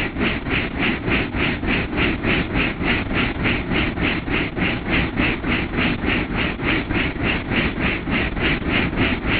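Helicopter in flight heard from inside the cabin: a steady engine drone under the rotor's even, rhythmic whooshing chop, about four beats a second.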